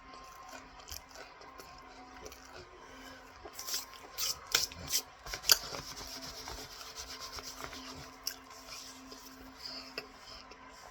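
Cornstarch being chewed close to the microphone: a cluster of sharp, crackly crunches a few seconds in, then a softer rasping grind that fades. A faint steady hum sits underneath.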